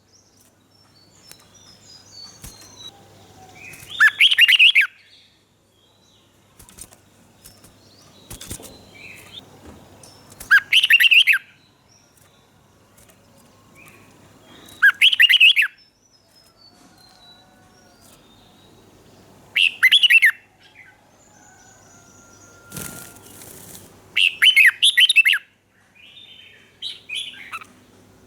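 Red-whiskered bulbul singing short, loud phrases of about a second each, roughly every five seconds, with fainter chirps in between. There is one short knock shortly before the last phrase.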